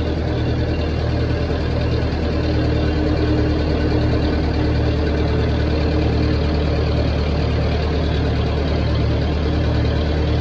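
Massey Ferguson 35 tractor engine running steadily, freshly started in near-freezing cold.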